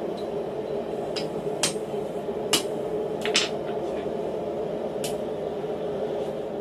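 A handful of scattered metal clanks and taps, about six, as a steel hammer and a mild-steel fork are handled and set down on a steel bending block, over a steady rushing hum.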